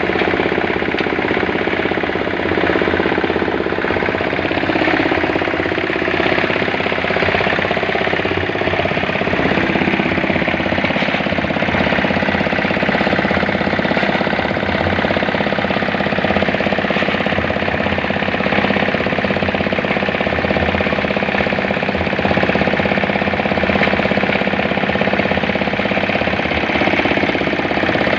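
8 hp diesel engine driving a cement mixer, running steadily with a fast, even pulsing beat.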